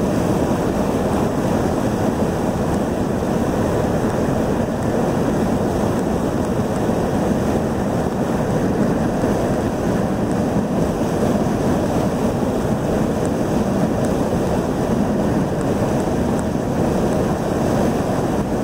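Steady road and wind noise inside a car cruising at highway speed, an even rush with no changes.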